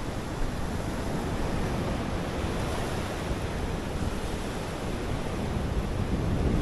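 Ocean surf rushing steadily on the beach, a continuous wash of breaking waves that grows a little louder near the end.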